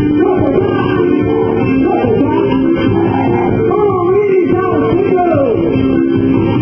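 Loud music: a gliding sung melody over steady held chords, with a dull, muffled quality from a narrow-range recording.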